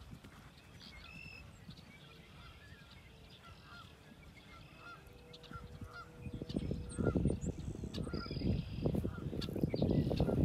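Geese honking repeatedly, with short calls over a quiet field. Irregular low thudding starts about six seconds in and grows louder toward the end.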